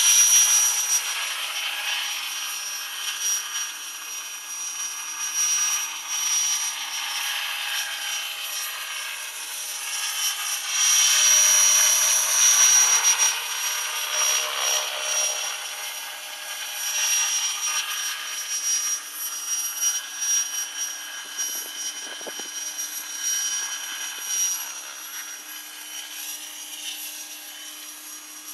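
Radio-controlled model helicopter in flight: a high, steady whine of motor and rotor blades that swells and fades as it moves about. It is loudest about eleven to thirteen seconds in and grows quieter near the end.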